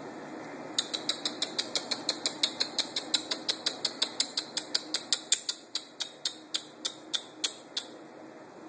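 A run of sharp mechanical clicks, about five a second, that slow and space out near the end before stopping, like a ratchet or wind-down mechanism.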